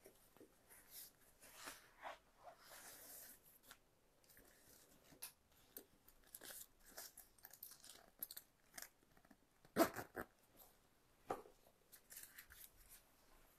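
Faint, scattered rustling and light clicks, like small objects or cloth being handled, with one sharper click about ten seconds in.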